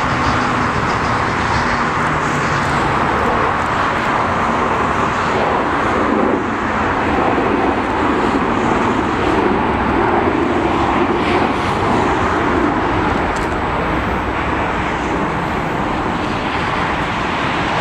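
Airbus A340-300's four CFM56 turbofan engines at take-off thrust as the airliner climbs out, a loud, steady jet noise.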